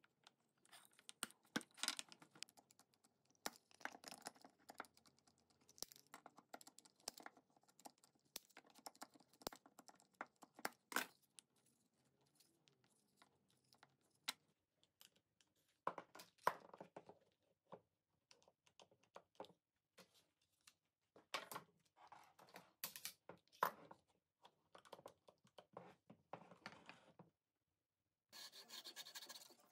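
Wooden pieces being handled and fitted together on a workbench: scattered light clicks, taps and scrapes of wood on wood, with pauses between them.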